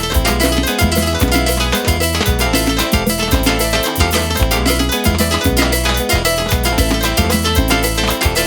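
Live tropical dance band playing an instrumental passage: a steady, fast percussion beat over a bass line, with pitched keyboard or string parts on top.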